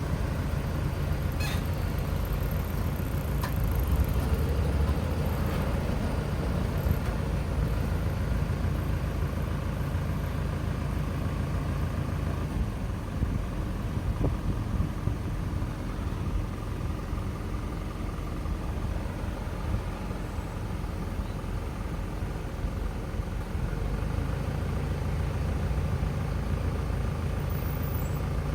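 Street traffic at a road intersection: motor vehicles running and passing, a steady low rumble.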